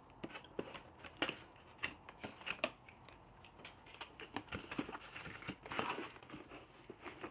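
Cardboard action-figure box being opened by hand: irregular rustles, scrapes and small clicks of the card flaps being pulled open.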